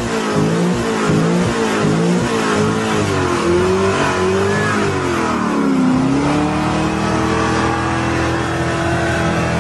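Chevrolet Corvette V8 revving hard during a burnout, with its rear tyre spinning in place. The revs waver quickly up and down for about five seconds, dip briefly, then hold high and steady.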